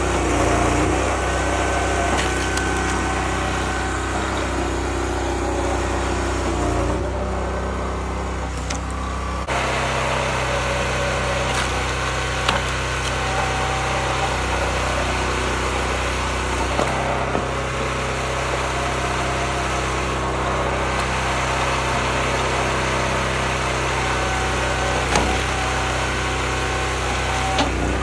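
Small gas engine running a homemade hydraulic log splitter, with oak being split and a few sharp cracks from the wood. The engine's note shifts about a third of the way in and again just past halfway.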